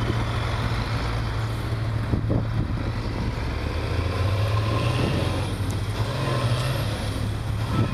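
Loaded International tandem dump truck's diesel engine pulling hard as the truck moves off, puffing black smoke under heavy throttle; the engine note shifts about three-quarters of the way through.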